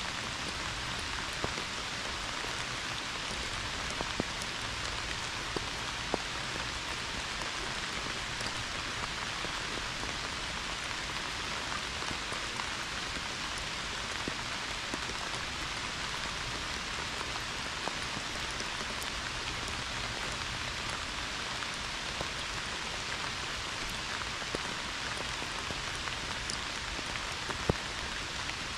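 Heavy, steady rain pouring down: a dense, even hiss, with a few sharper taps of single drops here and there.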